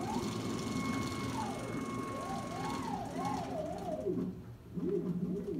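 Stepper motors of a Trucutcnc 4x8 CNC plasma table whining as the gantry jogs the torch carriage across the table. The pitch rises, holds steady, then falls, runs into a warbling stretch of short rising and falling tones, and a second run of rising and falling tones starts near the end.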